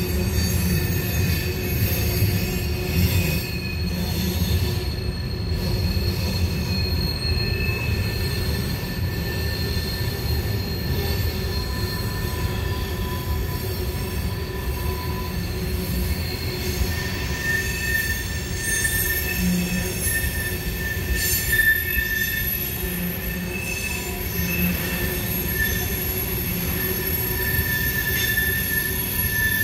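Tank cars of a long freight train rolling past on a tight curve: a steady low rumble of steel wheels on rail, with wheel squeal at several high pitches that comes and goes.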